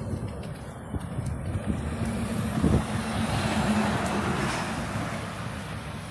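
Semi-trailer tipper truck driving past close by: its diesel engine drones and its tyres rumble, building to a peak about three to four seconds in, with a single knock just before, then fading as it pulls away.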